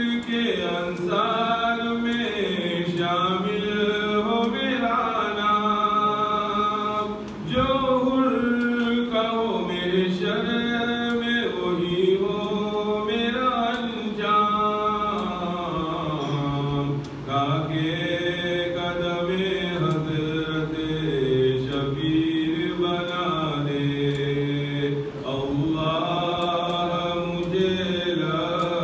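A man chanting a munajat qasida, a devotional supplication poem, solo and unaccompanied. He sings in long, gliding melodic phrases, with brief breaks for breath a few times.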